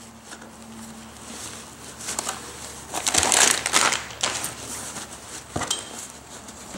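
A plastic bag crinkling and a suitcase's fabric lining rustling as hands rummage inside the suitcase, loudest about three to four seconds in, with two sharp knocks.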